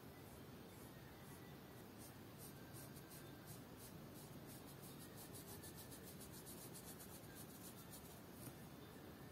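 Faint scratching of a watercolour brush stroking across textured watercolour paper in short repeated strokes, which come faster, several a second, in the middle.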